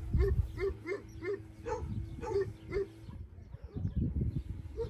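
A puppy crying in short, high whines, about two a second, which stop about three seconds in, followed by low rustling and bumping from handling.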